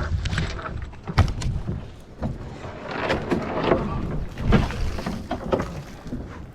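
Irregular knocks and scrapes from a wooden cedar-strip canoe being handled, a sharp knock about a second in and several more through the middle.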